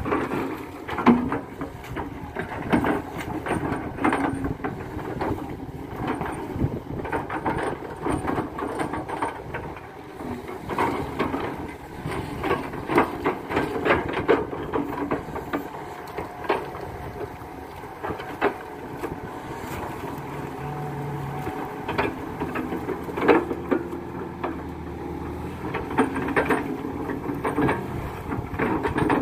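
KATO crawler excavator's diesel engine running under load as it scoops and dumps wet mud, with frequent knocks and thuds from the bucket and the mud.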